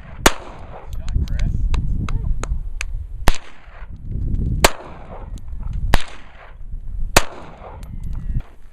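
Gunshots fired at a shooting range: five loud shots at a steady pace, about one every second and a half, each with an echoing tail, with fainter shots between them, over a steady low rumble.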